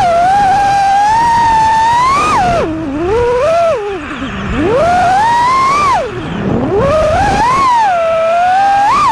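FPV racing quadcopter's brushless motors and propellers whining, the pitch swooping up and down with the throttle and dropping low three times during dives and flips.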